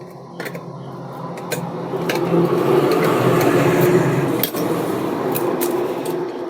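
Light clicks and scraping of wires and a screwdriver being worked at the terminals of an electrical switch board, over a steady humming rumble that swells through the middle and then eases off.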